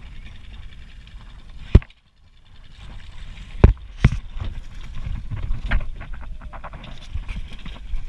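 Low wind rumble on the microphone broken by about four sharp knocks, the loudest near the start, as hands and gear handle the fishing rod and line close to the camera on a boat.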